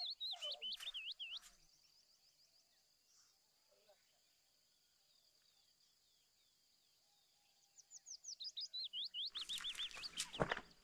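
A songbird singing a fast trill of down-slurred whistled notes, twice, with a pause of several seconds between the phrases. Sharp knocks come near the end.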